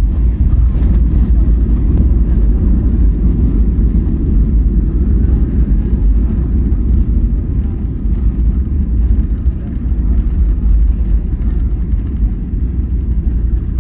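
Cabin noise of a Boeing 737-800 on its landing rollout: a loud, steady low rumble from the landing gear rolling on the runway and the engines, with the ground spoilers deployed to slow the aircraft.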